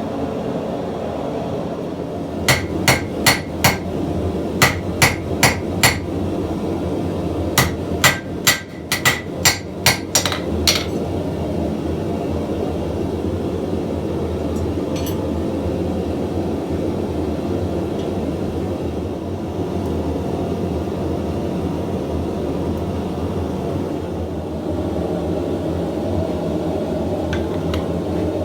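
Hammer blows ringing on an anvil in three runs, about four, four, then about nine strikes at two to three a second, over the steady rush of a running propane forge. After about eleven seconds only the forge's steady rush remains.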